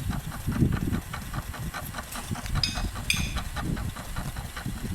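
Toy microwave oven running its cooking cycle: a steady mechanical hum with a rapid, even ticking of about five ticks a second.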